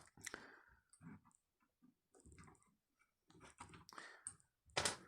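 Faint, scattered clicks and light knocks, with one sharper click near the end: a chainsaw's carburetor and its small parts being handled as the carburetor is worked free.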